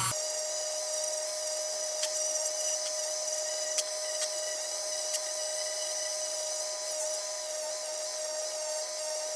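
Small high-speed rotary tool running with a steady whine and a high hiss, gently working the tarnished, cracked brass burner of the lantern, with a few light clicks and taps in the first half.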